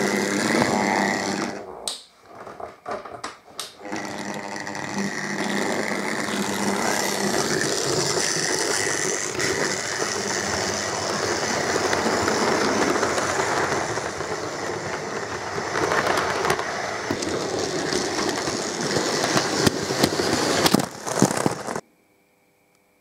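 Hornby OO-gauge model trains running on the track: a steady rattle of small wheels over the rails and points with the hum of the electric motors. It drops away briefly with a few clicks a couple of seconds in, and stops abruptly near the end.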